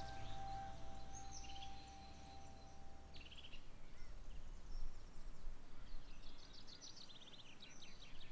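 Quiet outdoor ambience with small birds chirping and singing in short phrases at intervals. A single held note and a low hum fade out about three and a half seconds in.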